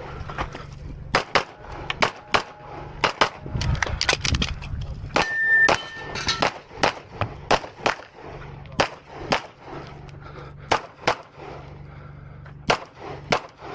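Rapid pistol fire from a red-dot-sighted handgun: dozens of sharp shots in quick pairs and short strings, with brief pauses between them. A short ringing tone comes about five and a half seconds in.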